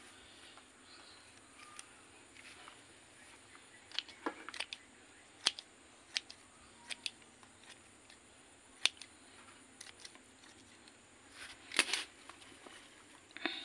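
Irregular short, sharp clicks and snaps with light rustling as the dry root mass of an uprooted kimeng bonsai is handled and trimmed; the loudest cluster of clicks comes near the end.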